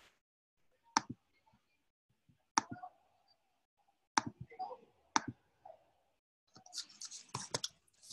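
Computer clicks and typing: four single sharp clicks spaced a second or so apart as menu items are chosen, then a quick run of keystrokes near the end as a word is typed in.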